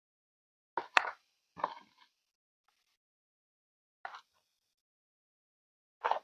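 A few short, quiet water splashes and plops, as of a small doll being dipped in bath water, separated by silence. A cluster of them comes about a second in, then single ones about four seconds in and near the end.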